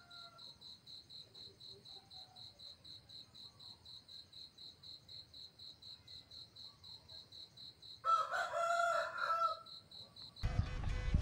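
A rooster crows once, about 8 s in, lasting about a second and a half. Under it, a steady high chirp repeats about four times a second. In the last second a sudden loud, noisy sound cuts in.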